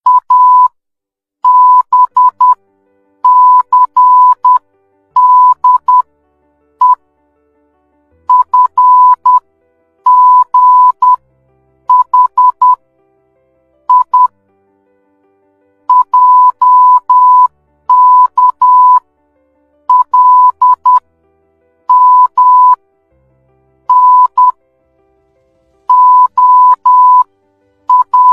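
Morse code sent as a single steady beep tone, keyed on and off in short dots and longer dashes, grouped into letters with brief pauses between them.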